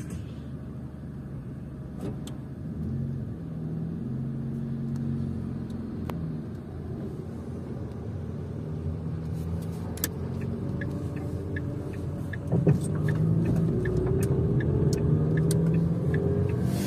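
Car engine and road rumble heard from inside the cabin while driving. The engine note rises a little about two-thirds of the way in, with a run of light ticks over the last few seconds.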